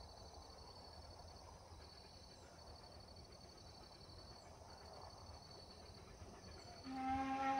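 Faint insects trilling steadily. About seven seconds in, a steam locomotive's whistle starts sounding, a held chord of several tones, much louder than the insects.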